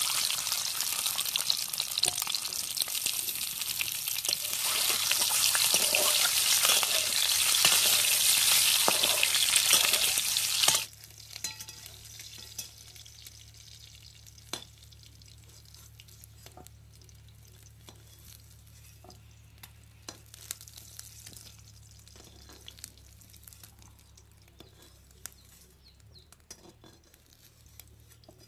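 Boiled eggs frying in hot oil in an aluminium pan, a loud steady sizzle that cuts off abruptly about eleven seconds in. After that it is much quieter, with occasional light clinks and scrapes of a ladle stirring in a wok.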